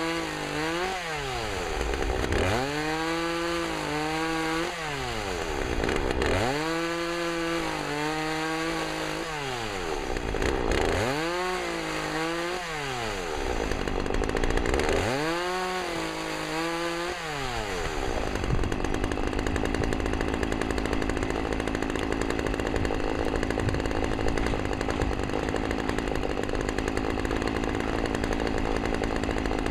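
A chainsaw revs up to full speed and drops back about five times, each burst lasting a couple of seconds, as limbs are cut one after another. From about 18 s in it gives way to a steady, rough, unpitched noise.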